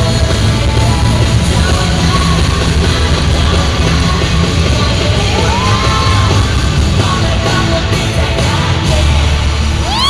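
Loud live music with heavy bass over an arena sound system, with fans screaming over it in a few rising-and-falling yells near the middle and a burst of screams at the very end.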